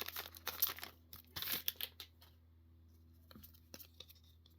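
Foil booster pack wrapper being torn and crinkled in a few quick rustling bursts over the first couple of seconds, followed by a few light clicks as the cards are handled.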